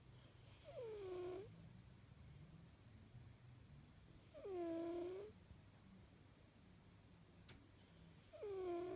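British Shorthair cat snoring in its sleep: three snores about four seconds apart, each a short pitched note that slides down and then holds before fading.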